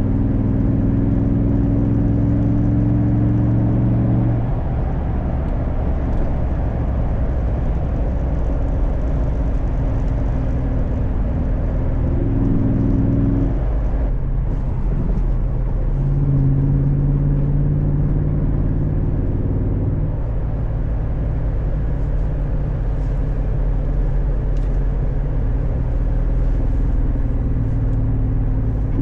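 Jeep SRT8's freshly rebuilt HEMI V8 pulling hard under acceleration, its pitch rising for about four seconds until a gear change, then running at a steadier drone with further shifts in pitch later on.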